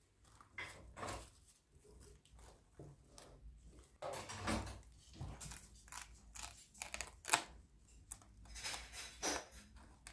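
Plastic cling film being stretched off its roll and pressed around the rim of a glass baking dish: irregular soft crinkles and rustles with a few sharper clicks.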